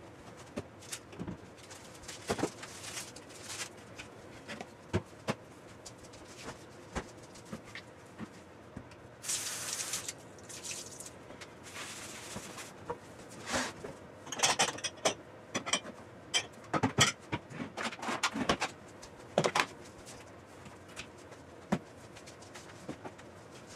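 Kitchen handling sounds: scattered knocks and clicks, a few seconds of a cloth wiping a wooden worktop near the middle, then a run of clinks and knocks as glass food containers and plastic lids are set down on the counter.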